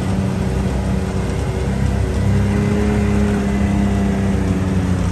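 Off-road vehicle engine running steadily, getting a little louder from about two seconds in.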